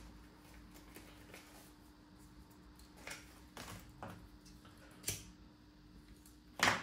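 Faint steady hum of a laptop's cooling fan running while it boots, with a few light clicks and knocks from handling, the loudest near the end.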